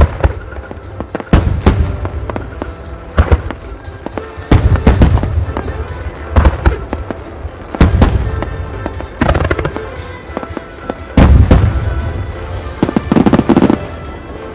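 Starmine fireworks barrage: aerial shells bursting in quick clusters of loud bangs about every one to two seconds, with crackling trails after them, over music played along with the display.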